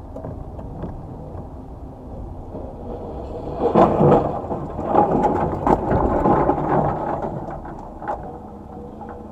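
Dashcam recording of a car crash: a steady low road rumble, then a loud bang about four seconds in, followed by more knocks and rattling for a few seconds.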